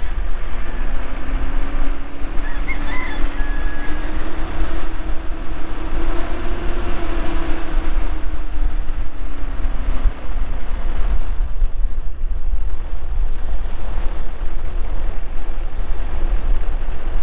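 Wind buffeting the microphone of a moving vehicle, a steady rumble and rush, with the vehicle's engine under it. A faint hum rises slightly and then fades out about eleven seconds in.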